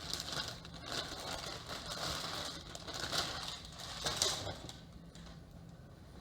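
Rustling as a hooded sweatshirt is unfolded and handled, in irregular bursts that die down about four and a half seconds in.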